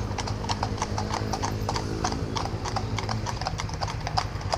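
Horses' hooves clip-clopping on the road as they pull carriages, several irregular strikes a second, with a motorcycle engine running low and steady underneath.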